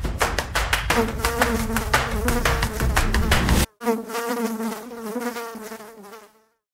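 Several DJI Avata 2 drones' ducted propellers buzzing, with a wavering pitch as they hover low and settle onto the ground. The sound cuts off abruptly a little over halfway through, comes back, then fades out as the motors wind down.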